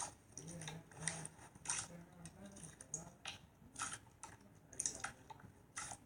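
Slime being squished and worked by hand, giving irregular clicks and pops, about eight in six seconds.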